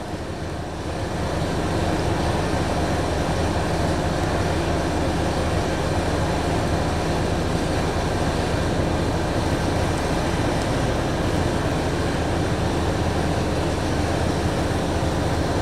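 2012 Buick Verano's 2.4-litre four-cylinder engine running steadily at idle; it stumbles but does not stall.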